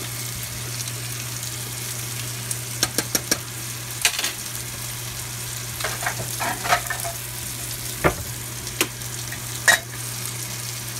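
Steady sizzling hiss of food cooking on the stovetop. A fork clinks against a saucepan of rice several times, in a quick run of four clicks about three seconds in and scattered taps after, and a metal lid is set down on the pan with a clack near the end.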